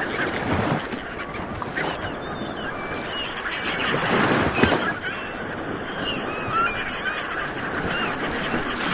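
Ocean waves washing on the shore, swelling about four seconds in, with many birds calling over them in short rising and falling notes.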